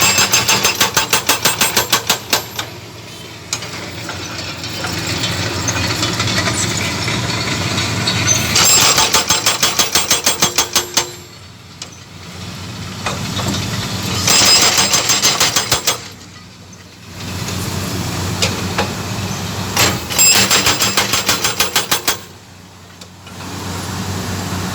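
Excavator-mounted hydraulic breaker hammering concrete in four bursts of rapid, even blows, each about two seconds long. The excavator's diesel engine runs steadily between bursts.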